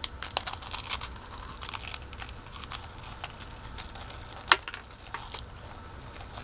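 Chewing and crunching a dry waffle cone: irregular crisp crackles, with one sharper crunch about four and a half seconds in.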